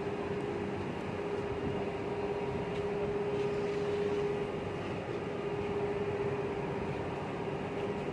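Steady mechanical hum: a constant droning tone over even noise, with no breaks or sudden sounds.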